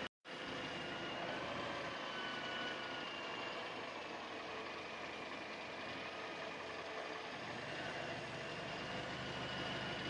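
Toyota Corolla 1.8-litre four-cylinder engine idling steadily with the air conditioning running, a faint whine riding over it that drifts slightly in pitch. The sound drops out for a split second at the very start.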